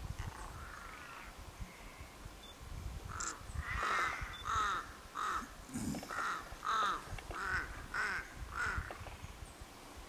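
A crow cawing, a steady series of about eight caws at roughly one every 0.7 seconds, starting about three seconds in.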